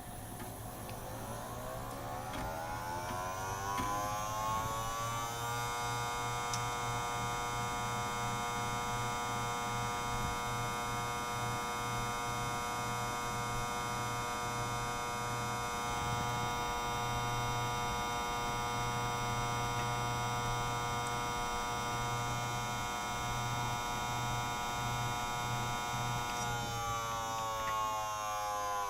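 Desktop PC's abnormally loud whining noise: a stack of tones rises in pitch over about five seconds as something inside spins up, holds steady, then falls away near the end, over a low, flickering buzz. The owner suspects it comes from near the CPU rather than a fan, and the PC freezes while loading.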